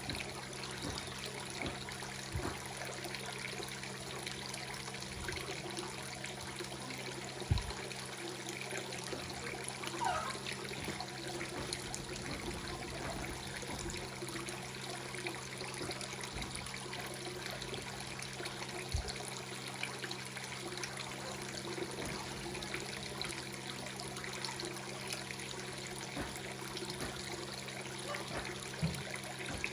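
Water trickling and splashing steadily into a fish pond, over a steady low hum. A couple of brief low knocks sound, one about a third of the way in and one past the middle.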